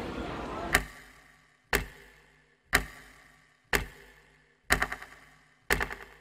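Clock-ticking sound effect: one sharp tick each second, each with a short echoing tail, the last two ticks breaking into quick rattling clusters of clicks. A steady background hiss cuts off about a second in.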